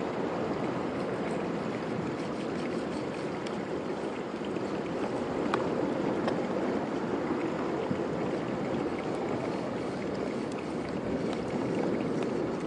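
Steady wash of sea surf on a rocky shore, with a few faint clicks of a knife working on a plastic cutting board.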